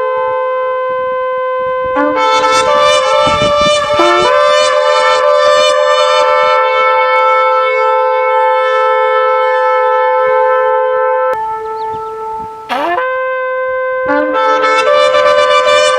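Several shofars (ram's horns) blowing long sustained blasts together. One horn holds a steady note at first, and more join about two seconds in, their pitches wavering and breaking. The sound thins to fewer horns for a moment before one sweeps up in pitch just before 13 seconds, and the horns swell back in together a second later.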